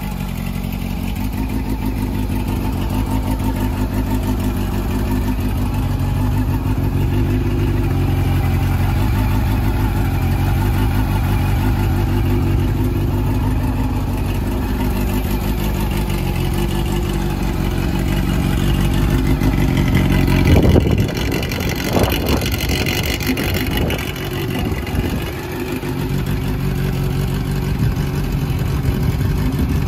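Honda CB400 Super Four VTEC Spec III's inline-four engine idling through an RPM aftermarket full exhaust system. About two-thirds of the way in it is revved in several quick throttle blips, then it settles back to a steady idle.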